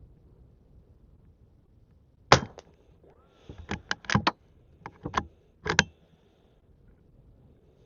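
A single sharp .22 rimfire shot from a Henry lever-action rifle firing standard-velocity rounds, about two seconds in. It is followed by a run of short metallic clicks and clacks over the next few seconds as the lever is worked to eject the case and chamber the next round from the tube magazine.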